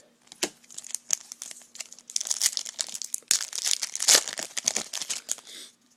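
A baseball card pack's plastic wrapper being torn open and crinkled by hand, with crackles that grow dense about two seconds in and stop just before the end.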